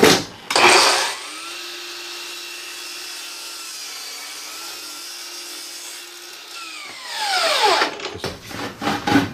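Electric saw cutting a wooden stair tread to length. After a clatter at the start, the motor spins up and runs at a steady pitch for about five seconds, dips slightly midway through the cut, then winds down with a falling whine about seven seconds in, followed by a few knocks of the board being handled.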